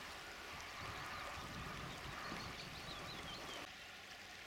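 River water flowing under the bridge, a steady quiet rush, with a short run of a bird's faint high chirps about two seconds in.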